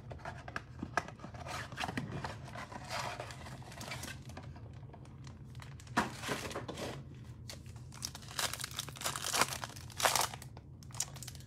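Foil wrappers of Panini Select basketball card packs crinkling and tearing as they are pulled from the box and ripped open by hand, in irregular crackles with louder tearing about halfway through and again near the end. A steady low hum runs underneath.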